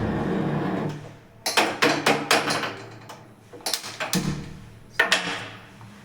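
Metal cookware clanking as a kadhai is handled and set on the stove: a run of sharp knocks and clanks about a second and a half in, then more near four and five seconds, each with a brief ring.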